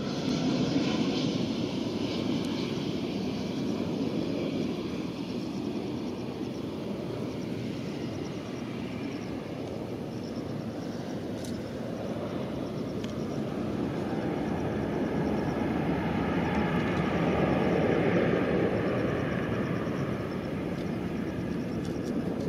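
Airbus A350-900's two Rolls-Royce Trent XWB turbofans at take-off power during the take-off roll, heard as a steady distant rumble with a faint high whine. The rumble swells a little about three quarters of the way through.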